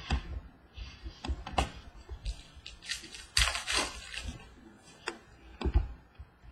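A trading-card pack wrapper rustling and cards being handled and tapped on a table: several sharp taps, with a longer crinkling rustle about three and a half seconds in.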